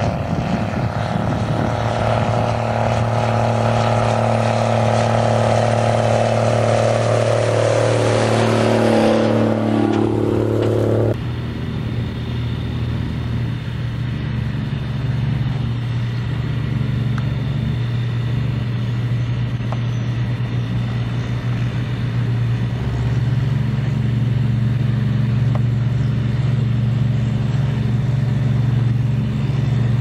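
Diesel engine of a Case IH four-wheel-drive tractor pulling a grain cart through a wheat field, running steadily, with its pitch dipping and rising again about ten seconds in. It cuts abruptly to the steady low drone of a Case IH combine harvesting and unloading beside the tractor, with a faint high whine over it.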